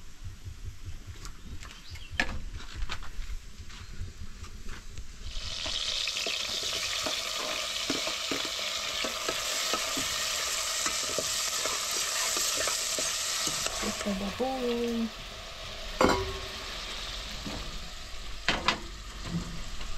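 Onions, tomatoes and peppers sizzling in hot oil in a stainless steel pot over a wood fire, stirred with a spatula. The sizzle starts suddenly about five seconds in and dies down after about fourteen seconds. A sharp clack of metal on the pot comes about sixteen seconds in.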